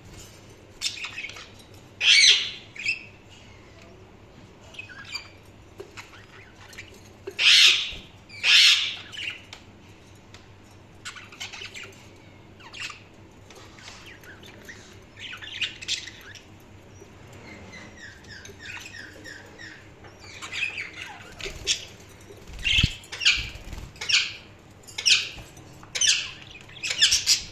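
Budgerigars chirping and calling: loud short squawks in bunches, with softer rapid warbling chatter in between.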